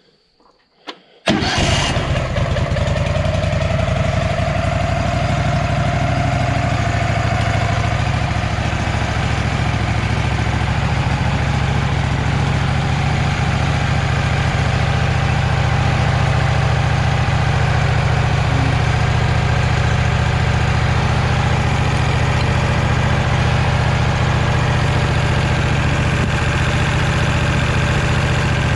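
Wood-Mizer LT15 portable sawmill's gasoline engine starting: a short click, then it catches at once about a second in and runs steadily.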